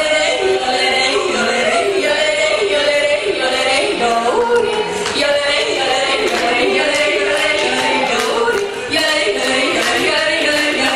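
Voices singing a song over musical accompaniment, steady and loud.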